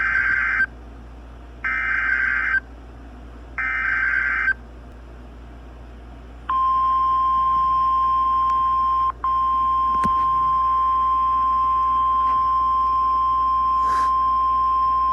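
NOAA Weather Radio Emergency Alert System alert for a severe thunderstorm warning. Three short bursts of buzzy SAME header data about two seconds apart, then, about six seconds in, the long steady 1050 Hz warning alarm tone, which breaks off briefly about nine seconds in.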